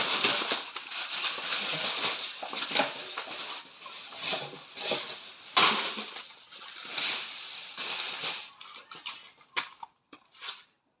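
Dense rustling and crunching with scattered knocks, like clutter being handled and cleared. It thins out to a few sharp clicks about eight seconds in.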